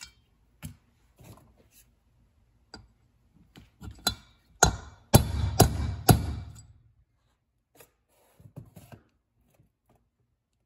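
Hammer striking a steel drift to drive a new valve guide deeper into an aluminium cylinder head: about five sharp metal taps with a short ring, grouped near the middle, among lighter clinks of tools being handled.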